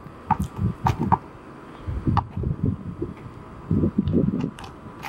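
Basketball bouncing on an asphalt court: a handful of sharp smacks at irregular intervals, with scattered low thuds between them.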